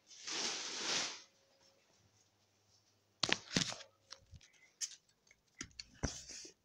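A short hissing rush about a second long, then, after a quiet gap, a string of sharp clicks, knocks and rustles from a phone being handled and moved while it records.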